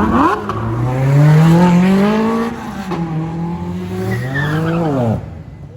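A car engine revving hard, its pitch climbing, dropping back, holding and climbing again before it falls away and cuts off about five seconds in.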